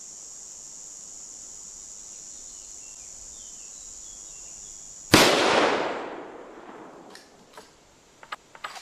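A single shot from a Winchester Model 1895 lever-action rifle firing a 7.62x54R cartridge, about five seconds in, loud and dying away over a second or two, followed by a few light clicks near the end. Before the shot a steady high insect buzz runs in the background.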